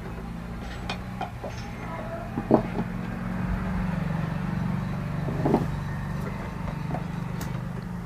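Scattered clicks and two louder knocks, about two and a half and five and a half seconds in, from handling parts and tools while wiring and fitting speaker drivers into a cabinet, over a steady low hum.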